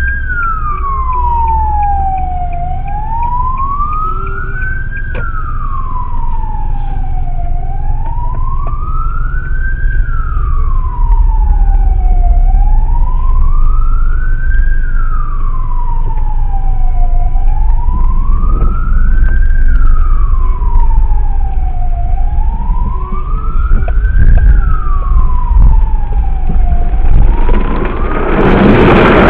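Emergency vehicle siren sounding a slow wail, its pitch rising and falling about every five seconds, over the low rumble of traffic. A loud rushing noise comes in near the end.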